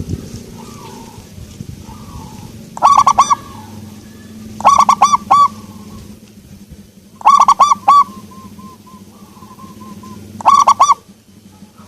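Zebra dove (perkutut) cooing: four short phrases of three or four quick, rolling notes, repeated every two to three seconds.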